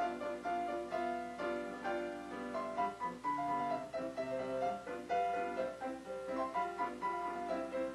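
Solo piano music playing a lively, quick-moving melody.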